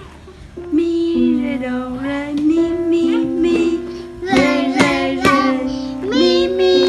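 A young child singing along while playing notes on an upright piano, with several sharp key strikes near the middle.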